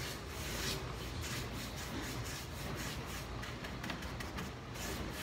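Paintbrush swishing in repeated, irregular strokes as wet paint is blended along the side of a cabinet, over a steady low hum.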